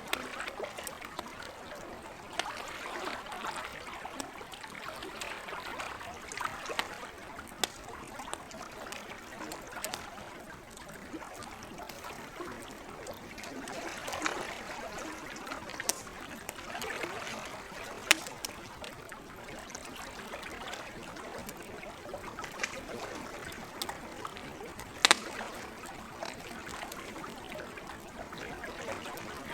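Campfire crackling, with scattered sharp pops (two louder ones, about eighteen and twenty-five seconds in), over the steady gentle sound of lake water.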